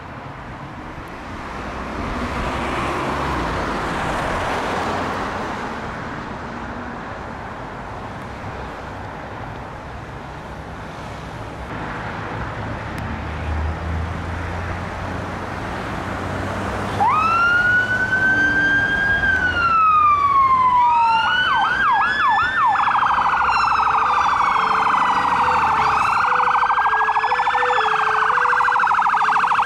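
Fire appliances' diesel engines running as they pull out, then electronic sirens start about halfway through: a rising wail that sweeps down, a quick yelp, then overlapping wails with a two-tone horn alternating high-low about once a second.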